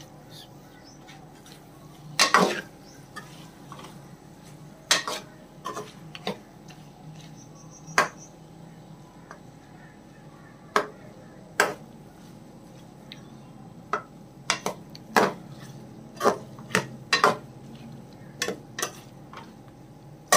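Steel spatula stirring a thick chicken-and-taro curry in a metal pot, clacking and scraping against the pot at irregular moments, about fifteen times, over a faint steady hum.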